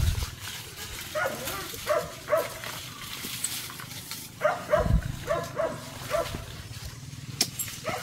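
A dog barking repeatedly, short barks in two runs with a pause of about a second between them. A dull thump about five seconds in.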